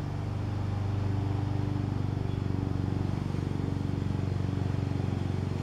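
Steady low hum of a running motor with a fast, even throb, growing slightly louder about a second in.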